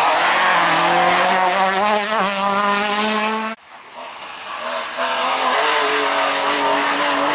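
Ford Escort Mk2 rally car accelerating hard out of a bend, its engine note climbing, cut off abruptly a little over three seconds in. Then a BMW E36 3 Series rally car's engine rises to high revs and holds there as it drives through.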